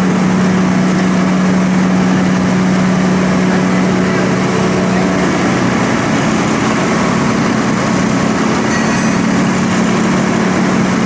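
Electric-motor-driven sawdust grinder running at speed, its motor and belt drive giving a loud, steady hum over a dense whirring noise.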